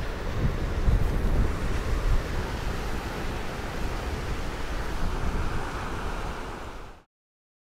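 Wind gusting against the microphone, with uneven low buffeting over a steady rushing hiss. It cuts off suddenly about seven seconds in.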